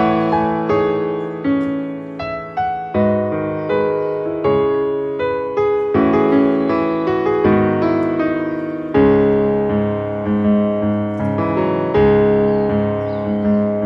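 Background piano music: a gentle piece of struck notes and sustained chords, changing chords every few seconds.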